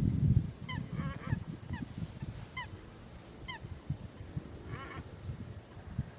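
Birds calling: a series of short, pitched, goose-like calls, roughly one a second, over a low rumble that is loudest at the very start.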